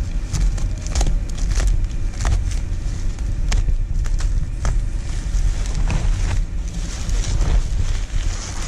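Crumpled kraft packing paper and bubble wrap rustling and crackling as hands dig through a cardboard shipping box, with irregular sharp crackles over a steady low rumble.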